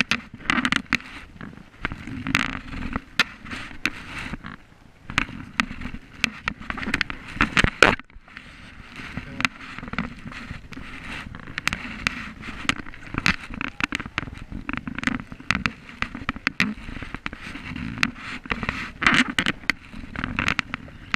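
Paddle strokes in an inflatable kayak: a double-bladed paddle splashing in and out of the water in repeated bursts, with many sharp clicks, crackles and knocks of water and paddle close to the camera.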